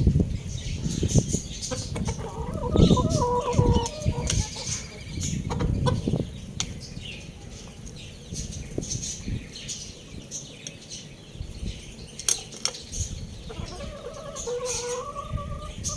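Young roosters, one giving a short, thin crow about two seconds in and again near the end, each about two seconds long. In between come clucking, wing flapping and scuffling, with high chirping throughout.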